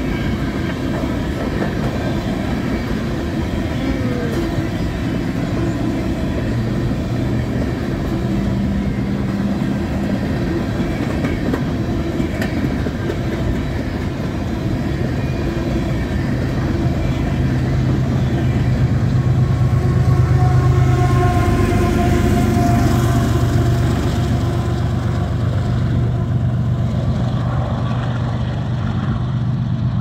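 Empty aluminium coal gondolas of a freight train rolling past close by: a steady rumble with the clickety-clack of wheels over the rail, swelling slightly in the middle.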